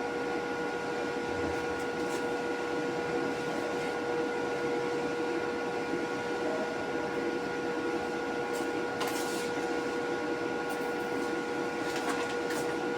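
Steady machine hum with several constant whining tones, and a few faint clicks in the second half.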